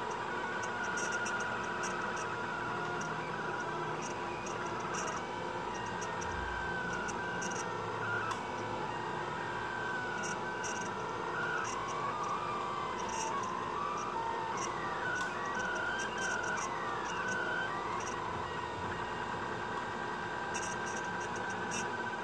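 Delta 3D printer printing: its stepper motors whine in pitches that slide up and down and shift every second or so as the print head moves, over a constant steady tone and mechanical hum, with faint ticks.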